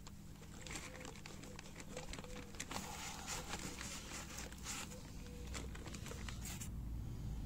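Faint irregular rustling and scuffing as a rubber dust boot, slicked with WD-40, is worked along a coilover shock absorber body by hand, with plastic wrapping and a foam sheet crinkling under it.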